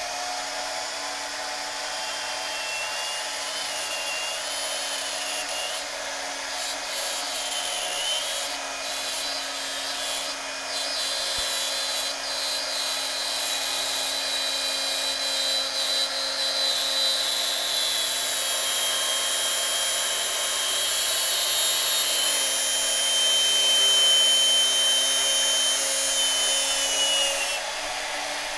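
Cheap Harbor Freight drill running steadily while its bit drills a pilot hole into a cue ball shifter knob, a high cutting squeal riding over the motor hum. The squeal is loudest about three quarters of the way in.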